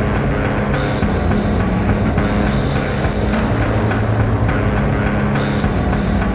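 Instrumental post-punk and ambient beat: held low bass notes under a dense, noisy wash of sound.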